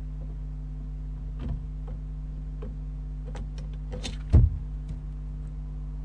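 Barn owl moving about inside a wooden nest box: a scatter of light clicks and scrapes, with one louder thump about four seconds in, over a steady low hum.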